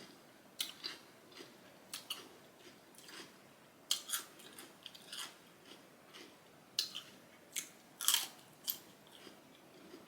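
Close-miked eating: a person biting and chewing food, with irregular crisp, wet crunches and mouth clicks.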